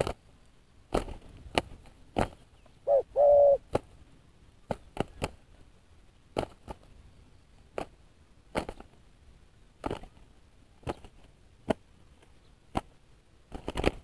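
Two spotted doves fighting on the ground, with about fifteen sharp, irregular wing slaps and flaps. About three seconds in there is one loud, short two-part coo.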